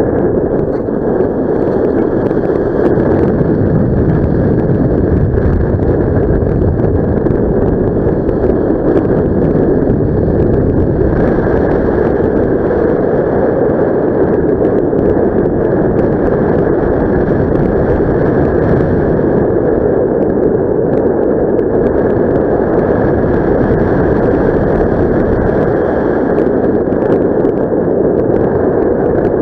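Steady airflow rushing over the microphone of a camera carried in paraglider flight, an even, loud rush.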